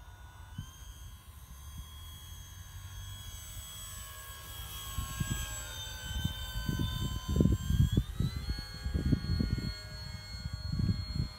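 Durafly Tundra electric RC model plane's motor and propeller whining as it flies past. The pitch slides down as it goes by and rises again about eight seconds in. Gusts of wind buffet the microphone through the second half.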